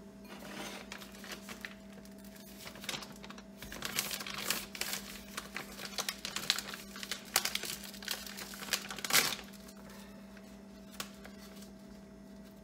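A stand-up bag of organic coconut flour crinkling and rustling in the hands as it is handled and opened, with irregular crackles and clicks. The sharpest crackle comes about nine seconds in, and it is quieter near the end.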